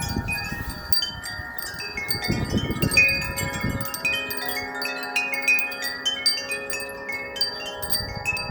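Wind chimes ringing in strong wind: many metal tones struck over and over and overlapping. A low rumble of wind sits under them during the first half and dies away about four seconds in.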